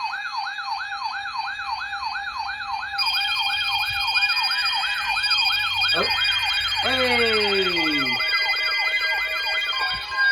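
Electronic siren sounding a fast, repeating rising yelp, about three sweeps a second, with further siren tones joining about three seconds in and a lower tone gliding downward in pitch between about six and eight seconds in.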